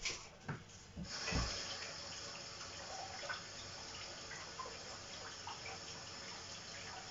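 Kitchen tap running steadily into a sink, starting about a second in after a few light knocks.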